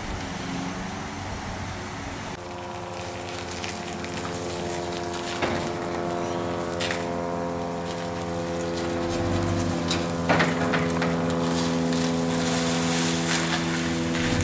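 Toyota Land Cruiser 80-series 4WD engine idling steadily at one even pitch while it reverses a loaded trailer, growing slowly louder as it comes closer. A few short knocks sound about five, seven and ten seconds in.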